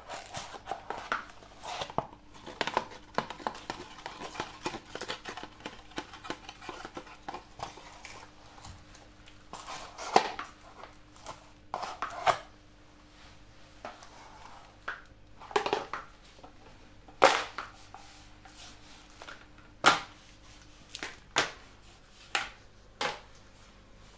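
Cardboard ice cream cup crackling and crunching as a stiletto's steel heel punches through it and grinds it flat, in quick dense crackles. After that come a few separate sharp clicks and crunches as the metal heels tread on the flattened cup and the tile floor.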